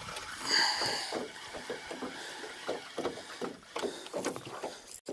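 A hooked small largemouth bass being brought in to a boat: a short splash about half a second in, then irregular light knocks and water sounds.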